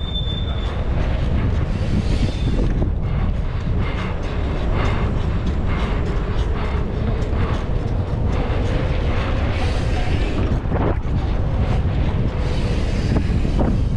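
Wind buffeting the microphone of a camera worn by a cyclist riding along asphalt, a steady heavy rumble, with tyre noise and scattered ticks and rattles from the bicycle.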